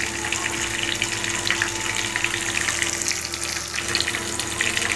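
Hot oil in a kadhai sizzling and crackling steadily as battered brinjal and potato pakoras deep-fry.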